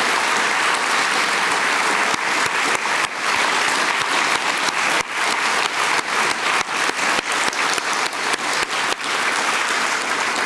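Audience applauding. The dense applause gradually thins into more separate, distinct claps over the second half.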